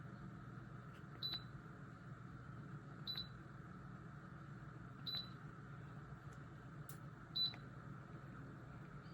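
Dreo Lynx S table fan running with a faint steady hum, and a short high-pitched chirp about every two seconds, four times in all.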